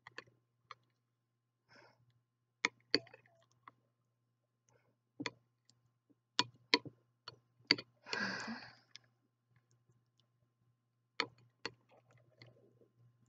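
A spoon stirring a thick avocado mash in a glass bowl, knocking against the glass in irregular sharp clinks. A short rush of noise comes about eight seconds in.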